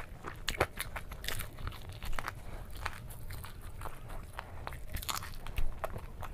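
A person biting into and chewing fried chicken leg pieces close to the microphone, with irregular crunches and clicks.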